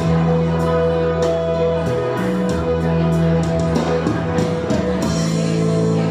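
Instrumental accompaniment music with sustained chords over a steady bass line and a regular beat of percussion strikes, without singing: the instrumental passage of a choir song.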